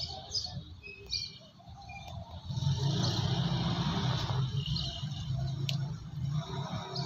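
Birds chirping in short high calls. About two and a half seconds in, a louder, steady low hum sets in and carries on.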